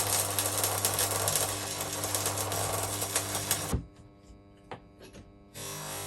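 Electric welding arc crackling while a crack in the vise body is welded, over a steady hum from the welder. One bead of about three and a half seconds, then a pause with a few clicks, and the arc strikes again near the end.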